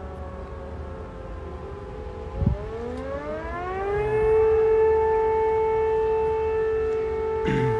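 A siren with a wailing tone that slowly sinks in pitch, then, after a thump about two and a half seconds in, winds back up and holds a steady, loud wail. A short burst of noise sounds near the end.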